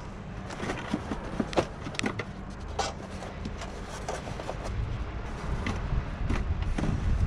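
Air filter box on an XE Ford Falcon engine being unclipped and opened by hand: scattered clicks, knocks and rubbing of the box parts, over a steady low rumble.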